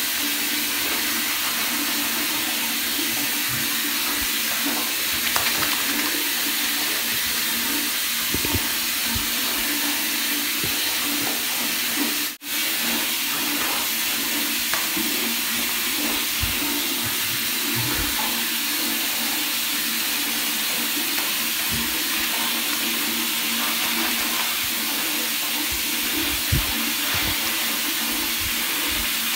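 Steady rush of water running in a bathtub during a dog's bath, with a few soft knocks from the dog being handled and lathered.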